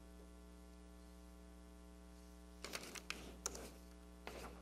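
Steady low electrical hum, with a few faint short noises around the middle and again near the end.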